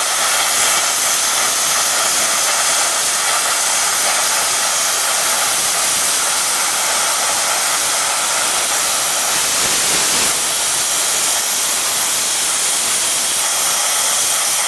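Air plasma cutter cutting: a loud, steady hiss of the plasma arc and compressed-air jet at the torch.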